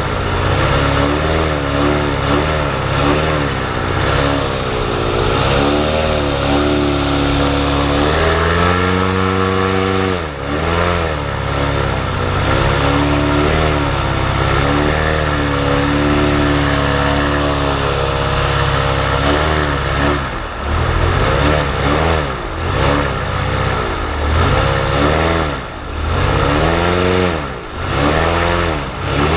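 Airboat engine revving loudly, its pitch rising and falling, with a run of quick throttle blips in the last several seconds.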